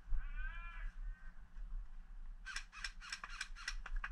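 Animal calls: one drawn-out, arching call about half a second in, then a quick run of harsh calls in the second half.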